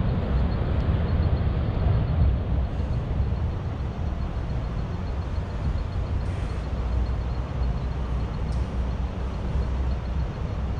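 Steady outdoor wind buffeting the microphone, a gusty low rumble with a few faint clicks.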